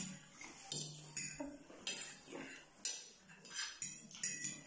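Knife and fork clinking and scraping against a plate while cutting meat: a string of short, sharp clinks, one every half second or so.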